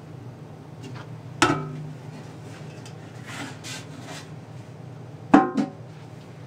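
Knocks and rubbing from handling the receiver's outer cover as it is lifted off the chassis: one knock about a second and a half in, faint scraping after it, and a louder knock near the end, over a steady low hum.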